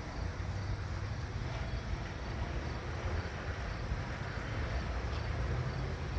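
Steady outdoor background: a constant low rumble with faint, evenly repeated high chirps, like insects.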